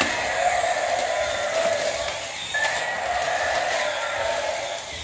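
Battery-powered toy dinosaurs running, a steady mechanical whirr of their motors and gears that breaks off briefly about two and a half seconds in, then starts again.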